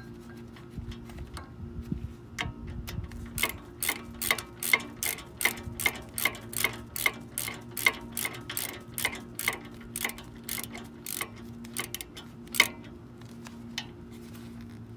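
Ratchet wrench with a 15 mm socket clicking in an even rhythm, about two to three clicks a second, as a brake caliper bolt is run in and tightened; one sharper click near the end.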